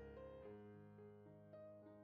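Quiet background music: a keyboard playing slow, held chords, with the notes changing a few times.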